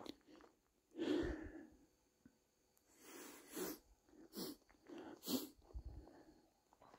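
A hiker's footsteps on a dirt and rock trail, roughly one step a second, with the walker's breathing. A loud breath comes about a second in.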